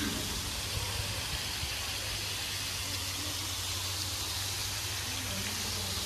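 Steady hissing spray of a pond fountain, with a low rumble of wind on the microphone underneath.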